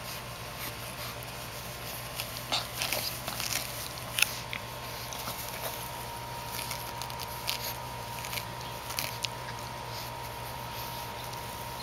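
Boston Terrier puppy chewing and tearing at grass: irregular crunchy clicks and crackles, the loudest a little past four seconds in.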